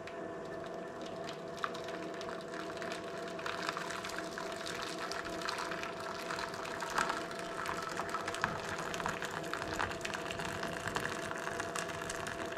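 Boiling water poured in a thin stream from a jug into a stainless steel tray, splashing and trickling against the metal as a water bath fills around a cake pan, over a steady hum.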